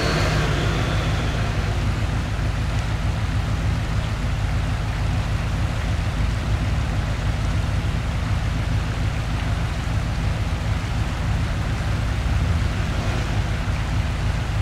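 Lifted off-road 4x4's engine running steadily under load as its oversized tyres spin and churn through deep snow at a river's edge, with a constant low rumble and a steady hiss of snow spray and running water over it.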